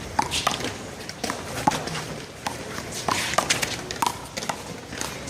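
Irregular sharp slaps and knocks with scuffing footsteps: a one-wall handball rally, the small rubber ball struck by hand and hitting the wall and the court.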